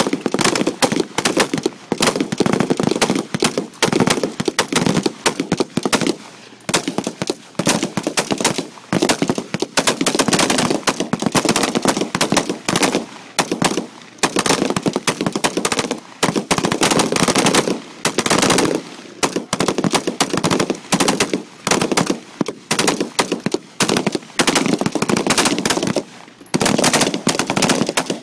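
Small-arms fire from several soldiers on a range, sharp shots overlapping into near-continuous volleys with brief lulls every few seconds.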